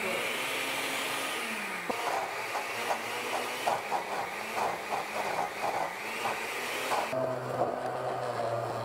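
Countertop blender running, pureeing cooked white beans into a dense paste. The motor's pitch rises and falls as it works through the thick mass. About seven seconds in, the sound changes to a lower, steadier hum.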